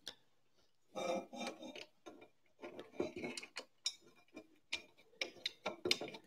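Light, irregular clicks and taps of small metal parts as screws are started finger-tight into the Ender 6 3D printer's black aluminium extrusion frame.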